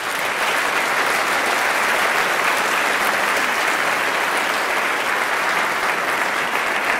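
Audience applauding steadily, a dense clapping from a large audience after a choral performance ends.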